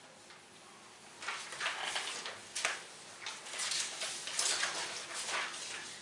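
Paper rustling as sheets are handled and turned, in irregular bursts starting about a second in.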